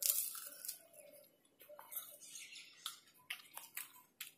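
Close-up biting and chewing of an ice cream cone: irregular crisp crunches and clicks, loudest at the first bite.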